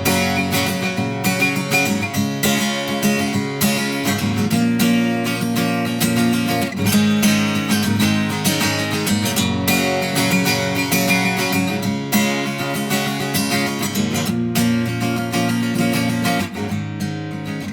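Instrumental passage of a song led by strummed acoustic guitar, between sung lines.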